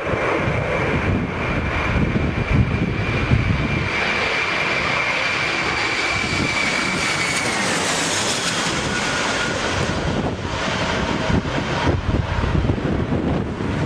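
Twin-engine jet airliner on landing approach passing low overhead: a steady engine whine that drops in pitch about seven to eight seconds in as the aircraft passes, over gusty wind rumbling on the microphone.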